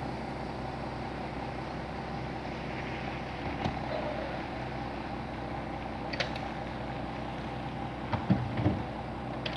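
Steady hum of a coach bus idling, with a sharp click or two as a side luggage-compartment door is pushed shut and latched, and a few dull knocks near the end.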